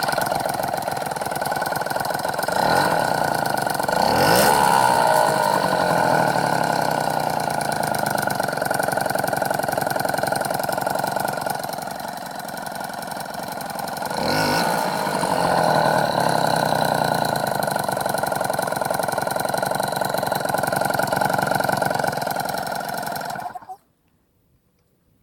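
Peugeot 103 Vogue moped's two-stroke single-cylinder engine idling, revved up and back down twice. It has a metallic clicking that rises with the throttle, which the owner fears is the piston striking the cylinder head from a squish problem. The sound cuts off suddenly near the end.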